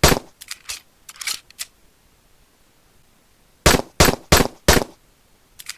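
9mm pistol shots: one shot at the start, then a run of four shots about a third of a second apart, beginning about three and a half seconds in. After each group come several lighter, quieter clicks and clatter.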